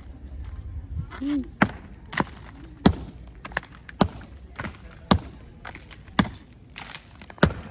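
Hammer blows breaking up a masonry wall in demolition: a steady run of about a dozen sharp strikes, roughly two a second.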